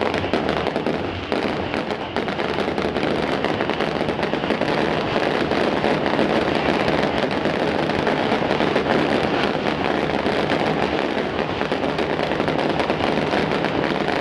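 Fireworks going off in a dense, continuous crackle, many small bangs packed together with no letup.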